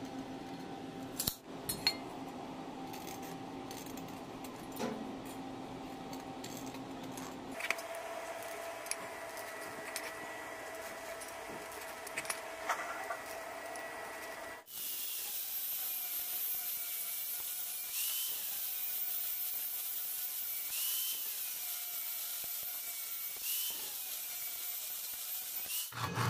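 Workshop power tools running in three separate takes. First a steady motor hum, then a higher steady tone, then a louder hissing run whose tone lifts briefly every two to three seconds.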